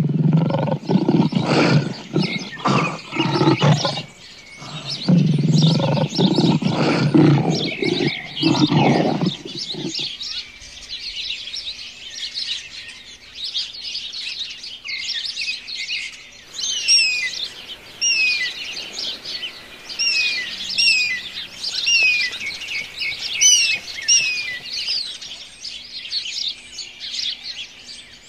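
A lion roaring in two low, pulsing bouts during the first ten seconds, over steady bird chirping. After that, only birdsong: repeated quick down-slurred whistled notes among other chirps.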